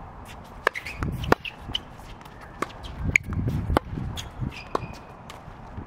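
Tennis rally on an outdoor hard court: sharp racket hits on the ball and ball bounces in quick, irregular succession, a few of the hits much louder, with some short high squeaks between them.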